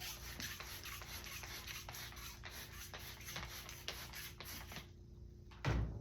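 Rapid back-and-forth scrubbing strokes on a metal toolbox, about three to four a second, stopping about five seconds in, followed by a single low thump near the end.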